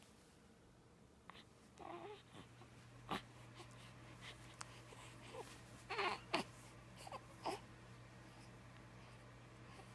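A young baby cooing: a few short, soft vocal sounds, the loudest about six seconds in.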